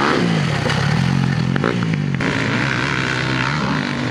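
Dirt bike engines running and revving. The pitch drops just at the start as the throttle is rolled off, then the engine runs on with smaller rises and falls, with other bikes' engines behind it.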